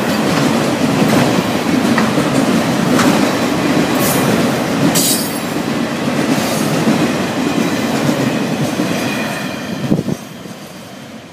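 Autorack freight cars rolling past: a steady rumble of steel wheels on rail with sharp metallic clicks now and then. The rumble drops away about ten seconds in as the last car goes by.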